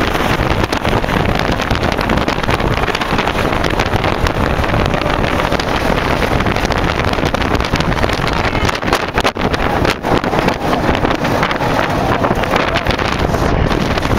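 Loud wind rushing over the microphone of a camera carried on the Magnum XL-200 steel roller coaster as the train runs at speed, mixed with the rumble of the train on its track.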